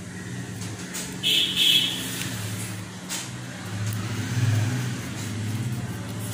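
Rolled newspaper sticks being pressed flat by hand, with the paper rustling and scraping on the table over a steady low hum. About a second in, a brief high-pitched sound stands out as the loudest thing.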